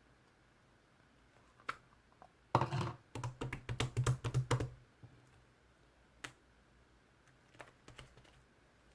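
Slime being squeezed and kneaded by hand, giving a quick run of sticky clicks and pops from about two and a half to five seconds in, then a few scattered clicks.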